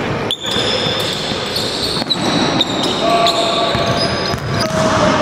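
Basketballs bouncing on an indoor court during a practice drill: a few separate sharp thumps ring out in the echoing sports hall, over the general noise of play.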